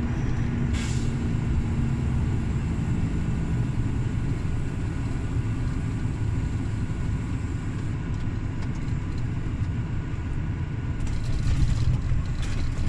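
Volvo FH460 truck's 13-litre six-cylinder diesel engine and road noise heard inside the cab: a steady low rumble as the truck rolls along.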